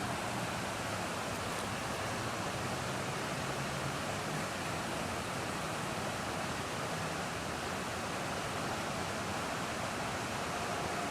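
Flooded creek water rushing steadily, an even hiss and roar.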